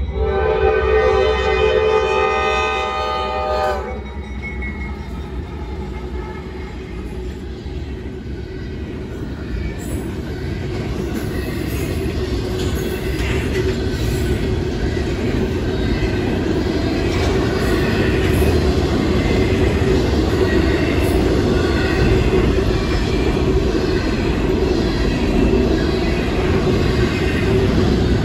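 Freight locomotive horn sounding one long chord for about the first four seconds. Then a double-stack intermodal freight train rolls steadily past, its wheels and cars growing louder and staying loud.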